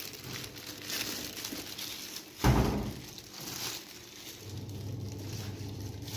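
Crinkly rustling and handling noise from plastic-gloved hands, a banana leaf and a woven tray of raw chicken, with one sudden loud thump about two and a half seconds in. A low steady hum comes in near the end.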